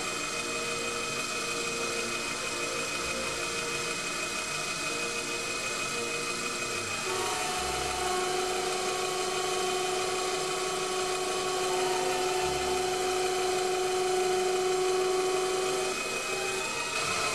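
Proxxon PD 250/e mini lathe running and turning down the end of a small timing pulley, a steady machine whine with several held tones that shift about seven seconds in.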